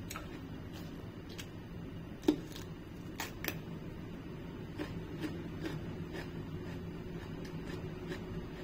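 Crunchy bites and chewing of a raw cucumber: a string of sharp crunches, the loudest about two seconds in, over a low steady hum.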